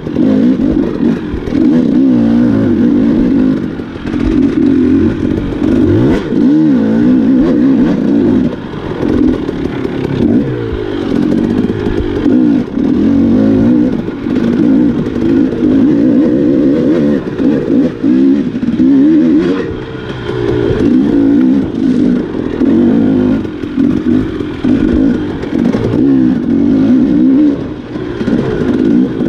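Enduro dirt bike engine revving up and down continuously as the throttle is worked over trail terrain, its pitch rising and falling and easing off briefly every few seconds.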